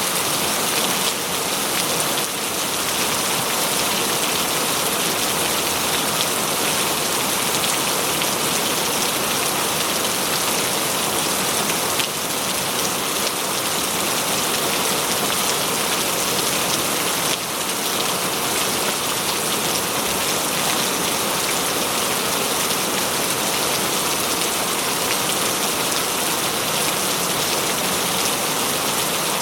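Heavy rain falling, a dense, steady hiss of drops on a surface.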